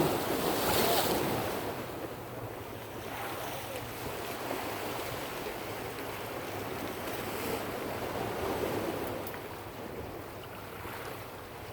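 Ocean waves washing in with wind buffeting the microphone, the surf swelling louder about a second in and again around eight seconds.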